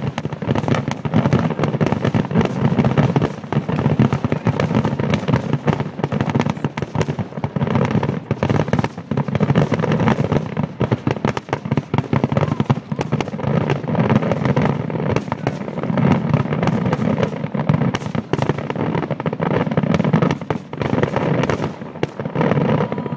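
Aerial firework shells bursting in a rapid, continuous barrage, many bangs a second overlapping with no let-up.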